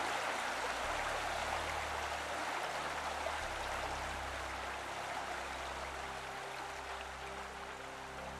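Steady rushing of a river cascading over a waterfall, easing slightly toward the end, with low sustained music notes underneath.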